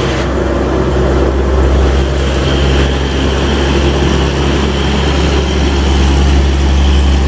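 Heavy vehicle engine running steadily: a loud, even low rumble with a hiss over it.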